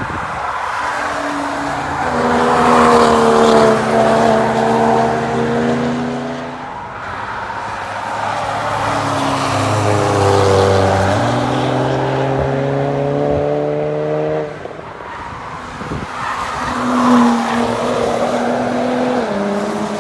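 Several cars passing one after another while driven hard, engines revving with gear changes heard as sudden steps in pitch.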